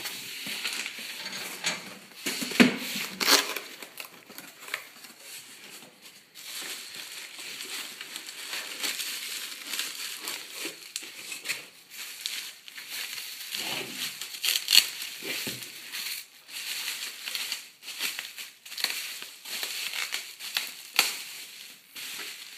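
Packaging being handled: a cardboard box opened and plastic bubble wrap crinkling and rustling as it is pulled off a small boxed item, in many irregular crackles.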